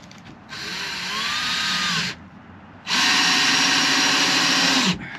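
Power drill run twice overhead, fixing the cab locker in place with screws: a shorter run about half a second in, then a longer, louder one from about three seconds, its motor winding down as it stops.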